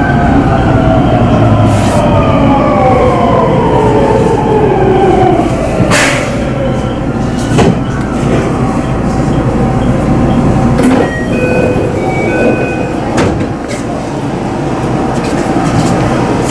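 Marine Liner electric train's motors whining down in pitch as the train slows, over a steady running rumble. A few sharp knocks and clunks follow, with brief high squeals from the train partway through.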